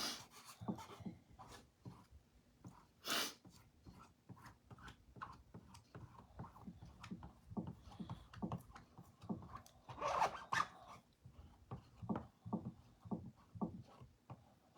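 Squeegee scraping and pressing paste through a pattern transfer onto a chalkboard: faint, irregular light scrapes and taps, with two longer, louder scrapes about three seconds in and about ten seconds in.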